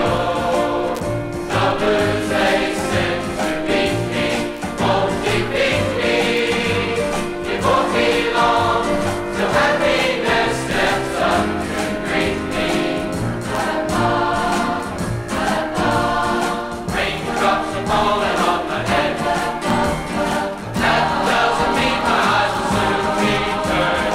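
A large choir singing a song together over instrumental accompaniment with a steady bass beat.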